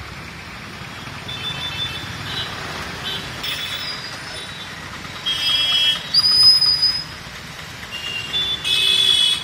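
Street traffic noise under repeated high-pitched vehicle horn honks. The loudest honks come about five seconds in and again near the end, with a thin whistle-like tone just after six seconds.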